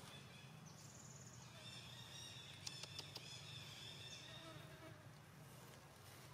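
Near silence: faint forest ambience with insects buzzing in a thin, high, steady tone over a low background hum, and a few faint clicks about halfway through.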